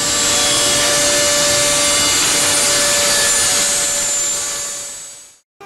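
Steady machine noise with a rushing, cutting character and a faint steady whine in it. It swells in at the start, holds, and fades away near the end.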